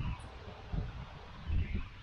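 Three short, low rumbles of wind buffeting the microphone, with a few faint high bird chirps among them.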